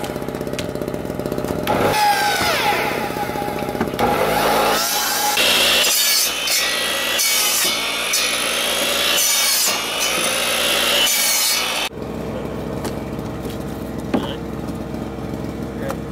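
Ryobi sliding miter saw cutting firewood-sized branches: the motor whine sweeps in pitch over the first few seconds, then the blade cuts loudly through the wood for several seconds. About twelve seconds in the sound cuts off suddenly to a quieter steady hum.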